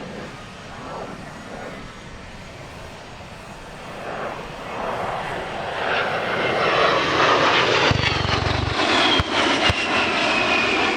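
XP-82 Twin Mustang's piston engines growing louder as the aircraft approaches and passes, with a propeller whine that falls steadily in pitch as it goes by. A couple of sharp clicks come near the end.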